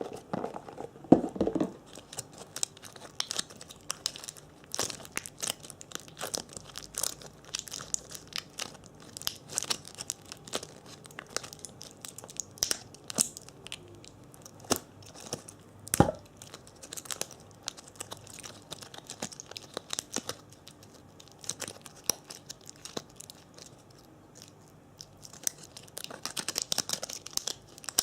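Close-miked ASMR trigger sounds: a steady stream of irregular small crackles and clicks from objects being handled, with one louder knock about 16 seconds in.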